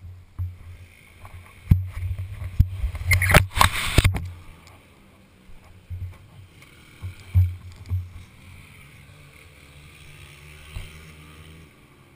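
Low rumbling and irregular knocks from a vehicle-mounted camera jostling as it moves over gravel, with a loud burst of rushing noise about three seconds in that lasts about a second.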